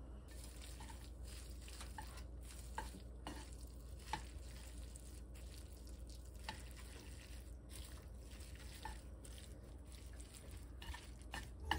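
Wooden chopsticks tossing glass noodles and chives in a nonstick frying pan: quiet soft stirring with scattered light clicks of the chopsticks against the pan.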